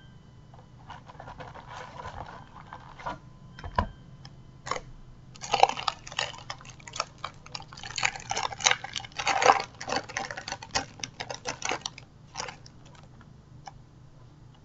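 Match Attax trading-card packet being torn open and its wrapper crinkled: a dense run of crackles for several seconds, with softer rustling and a knock before it.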